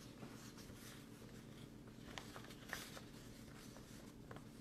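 Near silence: faint room tone with a few small, short clicks.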